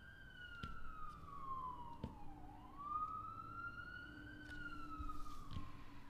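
A siren wailing faintly, one slow glide down in pitch, back up, then down again. Under it is a faint steady low hum.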